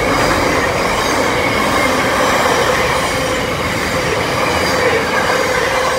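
Intermodal container freight train's wagons rolling past close by: a loud, steady rush of steel wheels on rail with a sustained whine riding over it.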